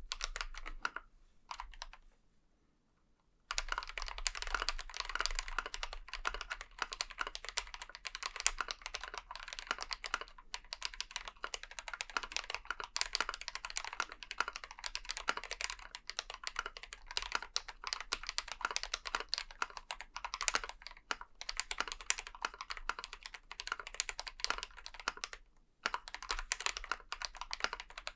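Typing on a GMMK Pro mechanical keyboard fitted with Novelkeys Cream linear switches lubed with Krytox 205g0 on a polycarbonate plate, with Durock stabilizers. A few keystrokes and a pause of about two seconds are followed by fast, continuous typing, with a brief break near the end.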